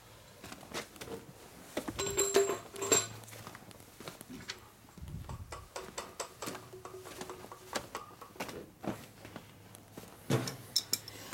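Scattered clinks and knocks of metal shop items being handled, a few of them with a short metallic ring, mixed with footsteps on a rubber shop mat.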